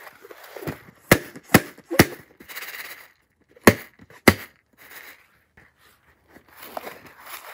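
A rubber balloon squeezed and rubbed between the hands, with five sharp snapping clicks over the first four seconds or so, and soft rubbery rustling between them.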